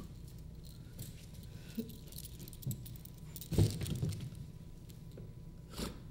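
Leather restraint straps being fastened, their metal buckles clinking and rattling, with a few short knocks; the loudest comes about three and a half seconds in.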